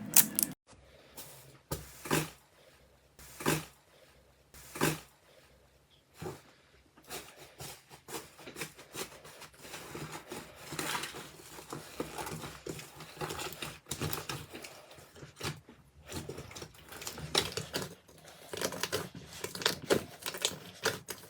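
Slime being squished and pressed by hand: a few separate sticky pops over the first six seconds, then a steady run of small crackles and clicks.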